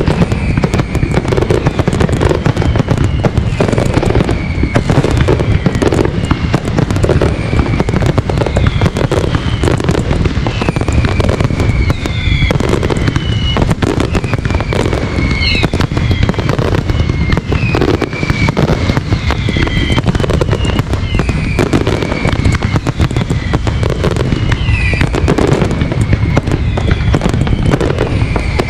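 Fireworks display going off in a dense, continuous barrage: aerial shells bursting and comets launching in rapid succession over a heavy low rumble. Short high tones that glide down in pitch recur throughout.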